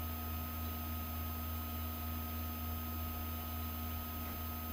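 Steady electrical hum with several faint steady tones from the recording setup, unchanging throughout; no speech.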